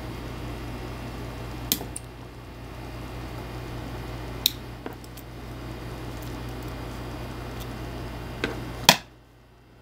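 Small metal clicks from a key fob's spring-gate clasp being handled and snapping shut, about six sharp clicks spread unevenly, the loudest near the end.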